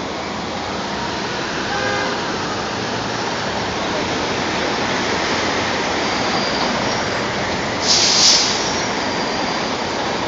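New Flyer D60HF articulated diesel bus approaching and pulling up to the curb over steady city traffic noise, its sound growing slightly louder, with a sharp air-brake hiss about eight seconds in as it comes to a stop.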